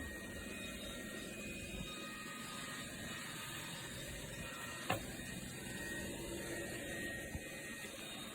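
Steady mechanical whirring and rattling from a small machine, with a single sharp click about five seconds in.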